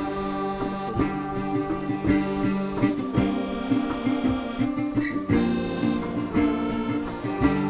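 Background music led by a plucked guitar, with sustained chords and a regular beat.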